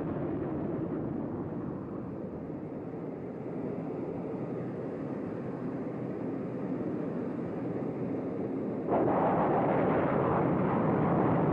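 Steady rushing noise of a jet in flight. About nine seconds in it jumps suddenly to a louder, brighter rush as a Sidewinder missile's rocket motor fires off the wing pylon.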